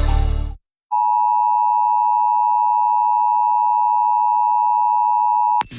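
Emergency Alert System two-tone attention signal: a steady alarm of two close pitches sounding together, starting about a second in after a short gap and held evenly for about four and a half seconds before cutting off abruptly. It signals the start of an emergency alert broadcast, here a flash flood warning.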